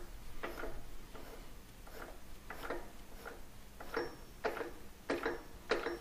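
Grizzly G4003 lathe spindle being turned slowly by hand, giving a string of soft, irregular clicks, roughly two a second, with light rubbing.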